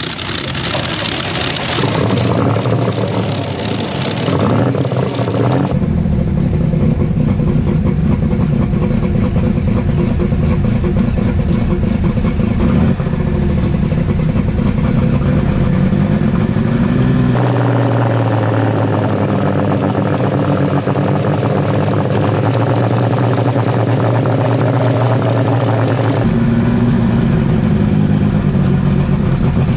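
Superstock pulling tractor's diesel engine running loud, mostly steady with a few short revs that rise in pitch, cut together from several shots.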